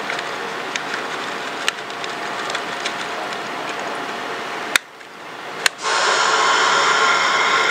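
Plastic weighing bag crinkling with small scattered clicks as powder is tapped out of it into a glass bottle, over a steady background hum. Two sharp clicks come shortly before the five-second mark, and about six seconds in a louder steady hum with several whining tones sets in.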